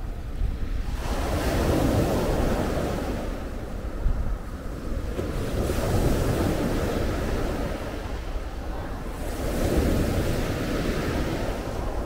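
Mediterranean waves breaking on a pebble beach: three surges about four seconds apart, each a swelling hiss of water washing up over the stones, over a steady low rumble of wind on the microphone. A brief knock about four seconds in.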